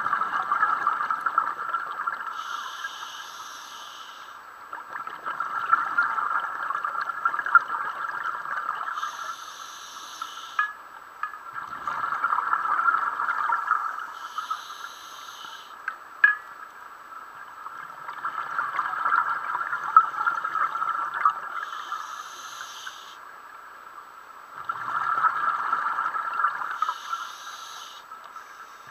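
A scuba diver breathing through a regulator underwater, in a slow, even rhythm of about five breaths. Each breath is a long rush of exhaled bubbles followed by a shorter, higher hiss of air drawn through the regulator.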